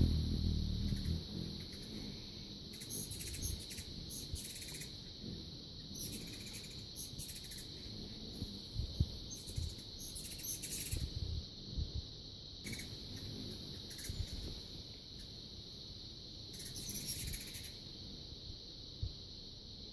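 Insects, most likely crickets, trilling in one steady high drone, with short high-pitched chirps coming and going every second or two.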